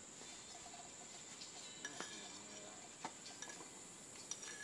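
A metal spoon stirring and tapping in small cups and bowls, giving a few light clinks. A steady faint high-pitched whine runs underneath.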